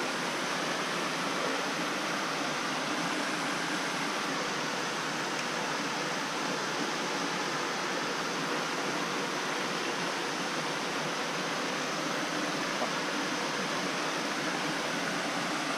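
Steady rushing of a small brook waterfall pouring over rock into a pool.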